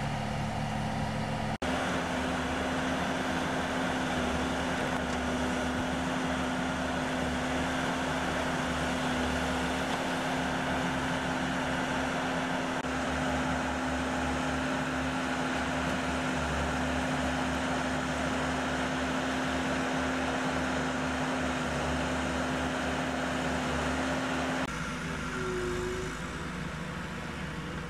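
Heavy earthmoving equipment's engine running steadily with a constant hum, as the arena footing is graded. The sound changes abruptly about a second and a half in and again near the end.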